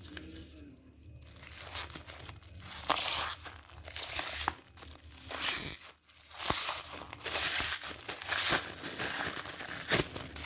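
Clear plastic packaging wrap crinkling and tearing in repeated bursts as it is cut and pulled off by hand, starting about a second in.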